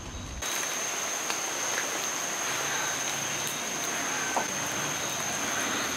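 Steady hiss with a thin, steady high-pitched whine running through it and a few faint ticks, starting abruptly about half a second in.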